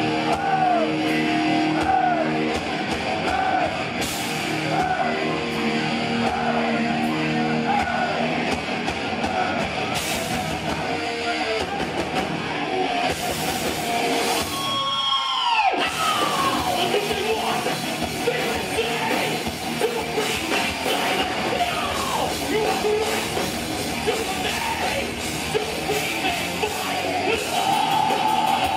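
Thrash metal band playing live: distorted electric guitars, drums and shouted vocals. About halfway through, a note swoops steeply down and back up in pitch.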